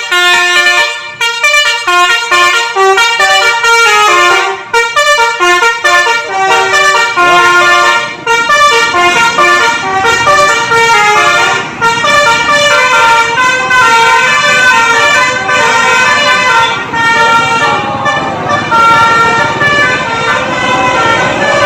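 A bus's 'basuri' telolet multi-tone musical horn, loudly playing a fast melody of short stepping notes without a break. From about eight seconds in, a rushing noise runs underneath it.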